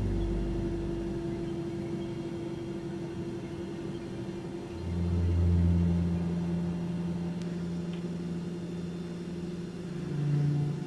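Low droning tones held steadily. About five seconds in, the drone drops to a deeper, louder note.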